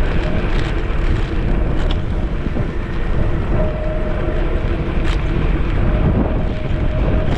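Wind buffeting the microphone of a handlebar-mounted GoPro on a moving electric scooter, with steady road rumble and a faint whine that comes and goes.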